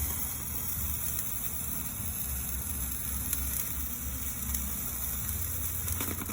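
Morning glory handheld sparkler firework burning, its spark fountain giving a steady hiss.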